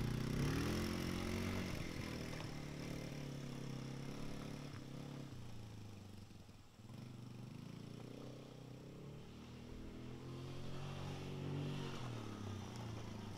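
Small ATV (four-wheeler) engine running as it is ridden, its pitch rising and falling with the throttle. It fades as the quad moves off about halfway through, then grows louder again near the end as it comes back.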